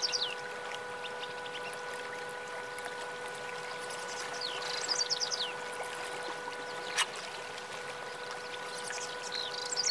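A white Java sparrow chirping: three quick runs of high, falling chirps, about five seconds apart, over a steady hum. There is one sharp tap about seven seconds in.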